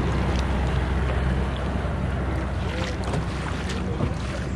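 Outboard motor of a passing motorboat running steadily, easing off a little after about three seconds as it moves away, over the wash of its wake and wind on the microphone.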